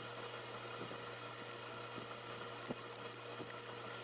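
Faint steady background hum and hiss, with a few soft small ticks, one a little sharper near the end.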